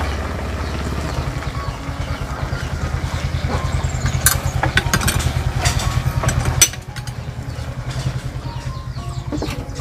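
An engine running steadily nearby with a low, pulsing throb, and a few sharp clicks in the middle.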